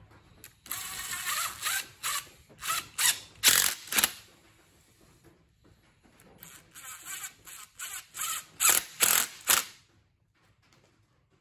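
Cordless power driver with a socket spinning down a hose clamp on a pipe fitting: two spells of whirring, each a brief run followed by several short trigger pulses, with a pause of about two seconds between.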